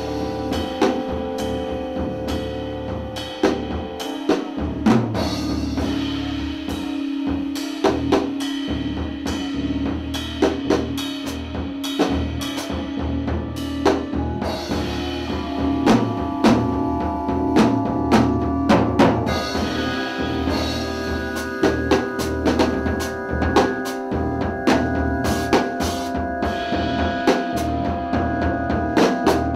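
Live free-improvised music from a drums, bass and keyboard trio: a drum kit struck busily and irregularly over a steady low bass drone and held tones. New, higher held tones come in about two-thirds of the way through.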